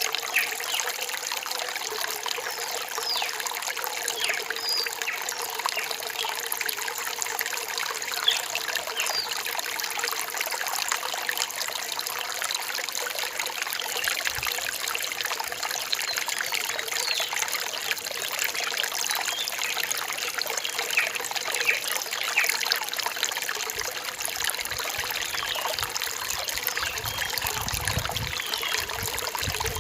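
Small forest stream trickling and splashing steadily over rocks.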